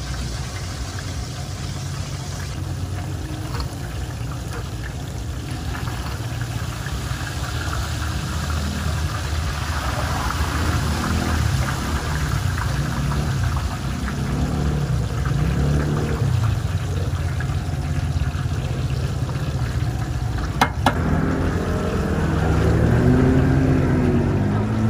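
Oyster balls deep-frying in a large wok of bubbling oil, over a steady low mechanical hum. A single sharp tap comes about 21 seconds in.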